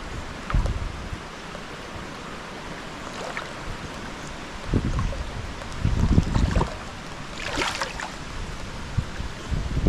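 Steady rush of rain and running water, broken by several irregular splashy bursts with low thuds from wind buffeting the microphone.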